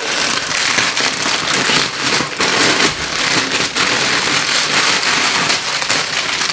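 Clear plastic packaging crinkling and rustling continuously as it is handled and torn open, a dense, loud crackle close to the microphone.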